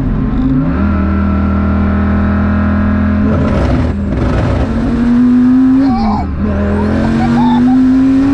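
Dodge Viper's V10 engine, tuned to about 1500 hp, heard from inside the cabin while pulling hard. Its note holds steady, climbs, dips briefly about six seconds in, then climbs slowly again.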